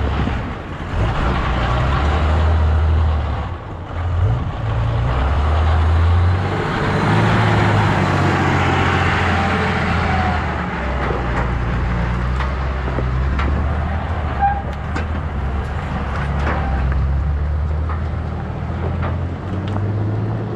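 Tractor engine running as it draws a silage trailer past close by, swelling to its loudest around eight to ten seconds in and then easing off, with wind rumbling on the microphone.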